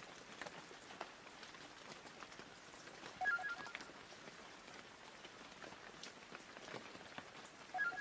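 Faint crackling hiss with scattered small clicks. Twice, about three seconds in and again near the end, comes a short electronic beep of a few quick tones.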